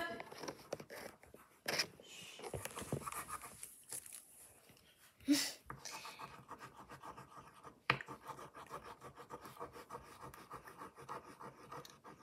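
Coloured pencil scratching on paper as a heart is coloured in, with a few sharp knocks, the loudest about five seconds in.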